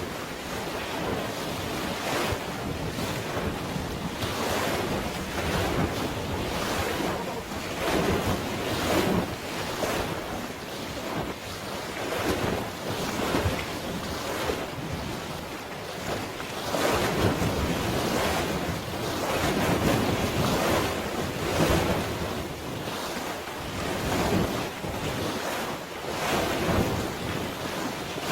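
Waves washing in irregular surges, with wind buffeting the microphone.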